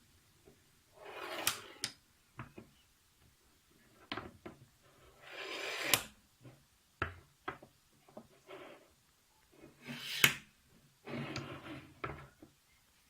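Bearing block of a CNC linear guide rail slid back and forth by hand: four gritty sliding strokes of about a second each, with sharp clicks and knocks where it stops and between strokes. The block is bad.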